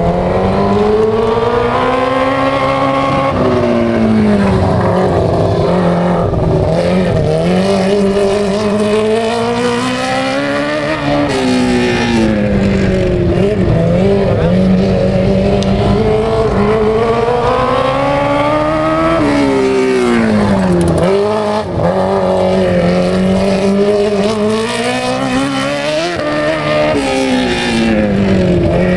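Three-quarter (TQ) midget race cars running on a dirt oval. Their engines rev up high, then drop off, several times over, as the cars go round the track.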